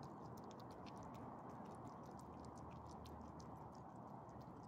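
Small dogs licking and chewing food out of a person's hand: faint, irregular wet clicks, several a second, over a steady low hiss.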